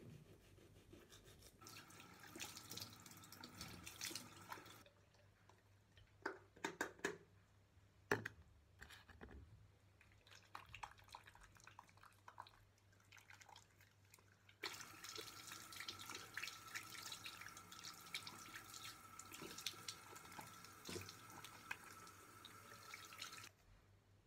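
A bathroom sink tap running for about three seconds, then a few knocks and clatters, then the tap running again for about nine seconds before it is shut off abruptly.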